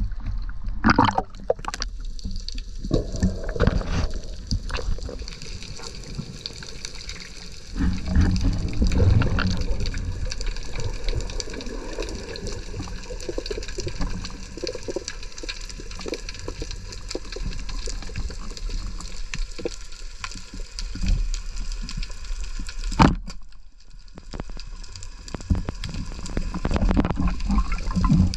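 Sea water sloshing and gurgling around the diver's camera in shallow water, swelling and easing irregularly. A single sharp click about 23 seconds in.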